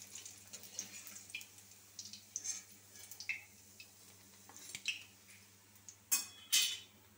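Perforated metal skimmer clinking and scraping against a metal kadai and a plate as fried fritters are lifted out of the oil, in scattered light taps, with two louder scrapes near the end.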